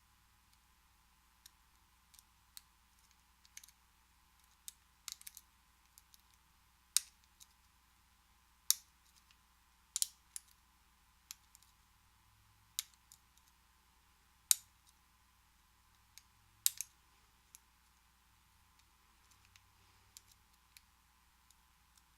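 Small sharp metallic clicks and taps at irregular intervals, some louder than others, from hands and metal tools working the keyway of an American 5200 pin-tumbler padlock.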